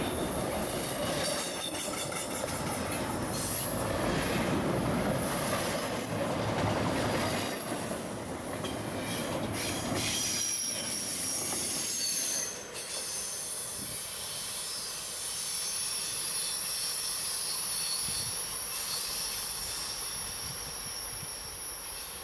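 CSX double-stack intermodal train passing close by: steel wheels rolling and clattering over the rail, with high-pitched wheel squeal on the curve. About halfway through the low rumble falls away sharply, while the thin squeal carries on as the train draws off.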